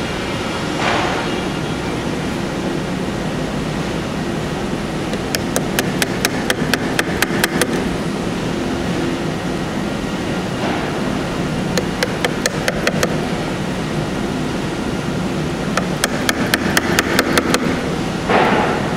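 Wood chisel driven into wood by quick, light mallet taps in three runs of several taps a second, with a few short scraping paring cuts between them.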